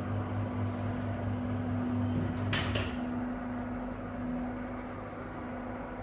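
Motorized projector screen's motor humming steadily as the screen rolls up, with a couple of sharp clicks about two and a half seconds in.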